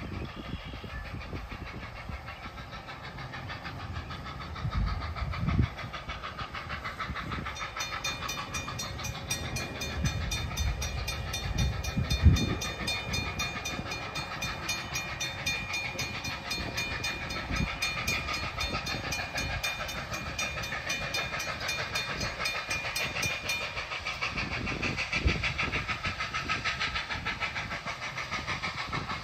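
Loaded tank cars of a freight train rolling past, wheels clattering over the rail joints with a few heavier thumps. From about 8 s to about 24 s a high, steady ringing tone with fast, even ticking runs over the rumble.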